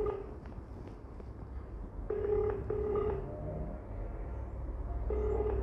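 Ring-back tone of an outgoing call heard through a smartphone's speaker: a low double ring twice, about two seconds in and again near the end, while the call goes unanswered.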